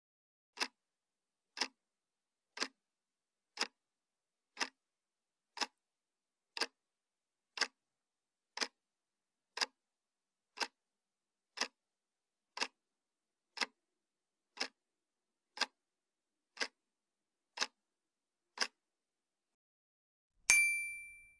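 Countdown-timer clock tick sound effect, one tick a second, nineteen ticks in a row. About a second after the last tick comes a single bright ding that rings and fades: the chime marking the correct answer.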